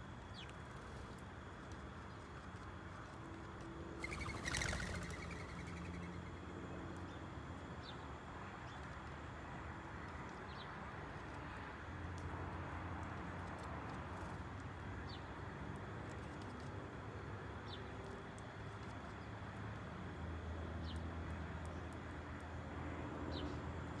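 Sparrows giving short, high chirps every few seconds over a steady outdoor background hum. A brief, loud rustling burst comes about four seconds in.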